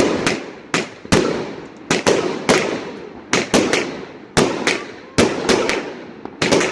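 Fireworks going off in quick succession: a string of sharp bangs, about two a second, each trailing off in an echo.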